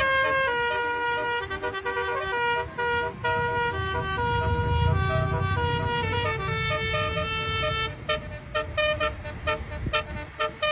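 Multi-tone 'telolet' bus horn playing a tune, held notes stepping from pitch to pitch every half second or so. A low rumble sits under the middle stretch, and the notes break up into short choppy blasts near the end.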